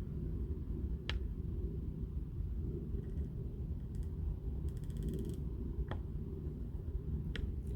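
A steady low rumble with a few small clicks and a short rattle about five seconds in: handling noise of an air rifle between shots.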